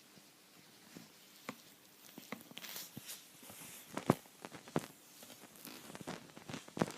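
Faint snoring of a sleeping dog: soft breathy noise twice, a few seconds apart, among irregular small clicks and taps, the sharpest about four seconds in.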